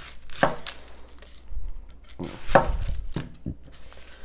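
A kitchen knife and vegetables knocking on a cutting board about four times at uneven intervals, the loudest knock, with a dull thud, near the middle.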